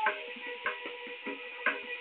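Hand percussion playing an uneven rhythm of sharp struck strokes, a few a second, each ringing briefly with a pitched tone, with an occasional deep low stroke.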